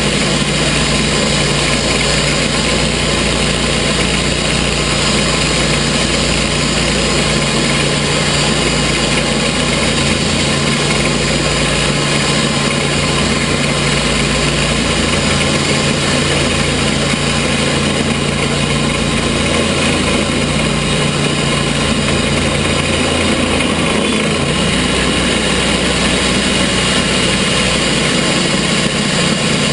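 Gas engine of a TimberKing portable sawmill running steadily.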